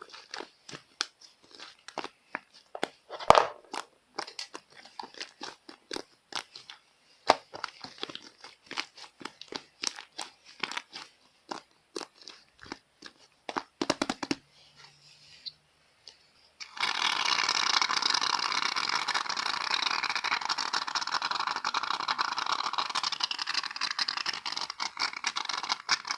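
Slime being squeezed and pressed by hand, a rapid irregular run of small clicks and pops. About seventeen seconds in, an aerosol can of shaving foam sprays in one steady hiss lasting about nine seconds, then cuts off.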